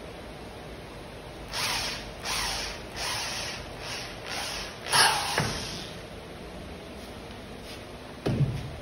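Cordless drill boring into the broken stem stuck in a tuba valve piston, run in several short bursts, the loudest about five seconds in with the motor winding down after it. A short knock near the end as the drill is put down on the workbench.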